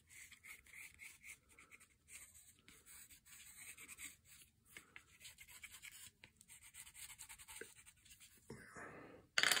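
Black colored pencil scratching on cardboard in many short shading strokes, faint. A brief loud noise comes near the end.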